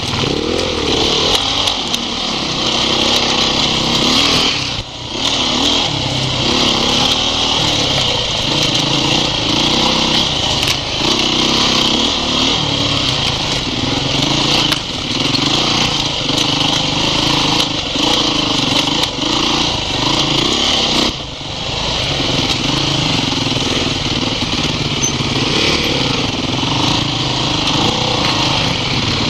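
Off-road motorcycle engines working up a rocky trail, the throttle opening and easing off continually, with two brief lulls about five and twenty-one seconds in.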